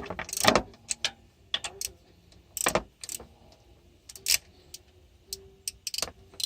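Metal hand tools and sockets clinking and knocking in scattered, irregular clicks.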